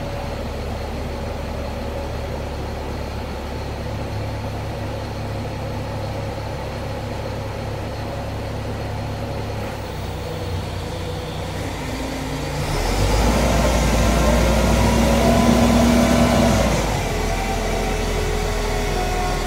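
Crane truck engine running steadily, then revving up for about four seconds from roughly two-thirds of the way in while the boom hoists and swings a cut tree limb, then easing back to a faster idle.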